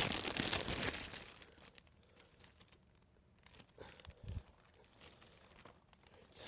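Packaging crinkling and rustling for about the first second, then quiet handling with a few faint knocks.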